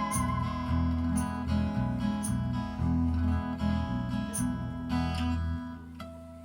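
Live band playing the instrumental ending of a song: strummed acoustic guitar over a low bass line, with sharp accents about once a second. The music stops about six seconds in and rings out.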